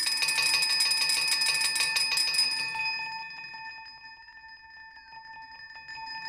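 A toy gong sample played through Omnisphere 2's granular oscillator: a shimmering, bell-like metallic ring of several steady tones with a fast fluttering grain texture. It fades away about three seconds in and swells back near the end as the grain position is moved.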